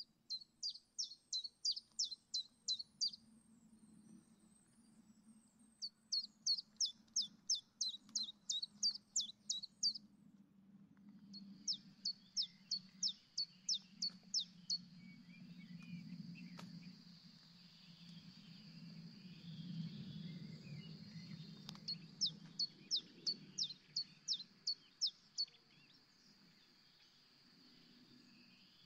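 Common chiffchaff singing: four bouts of about ten quick, evenly spaced high notes, with pauses between them. A faint steady high tone runs under the later songs.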